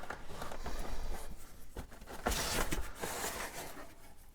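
Packaging being handled: irregular rustling with a few soft clicks and knocks, and a louder, hissier rustle a little past halfway.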